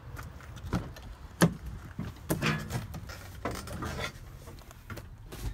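Peterbilt 367 cab door being unlatched and opened and someone climbing into the cab: a series of clicks, knocks and rubbing, the sharpest knock about a second and a half in.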